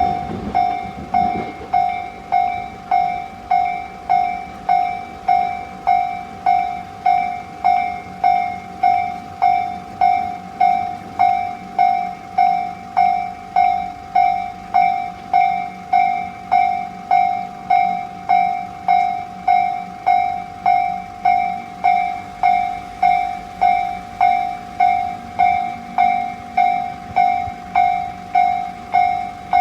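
Railway level crossing warning bell ringing steadily, about one and a half strikes a second: the signal that the barriers are down and a train is due. A train's running noise dies away in the first second or so.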